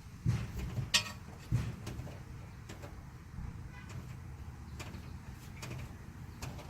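Two sharp metallic knocks about a second in and again half a second later, then faint scattered clicks over a low rumble, as a truck's transmission is worked loose from underneath.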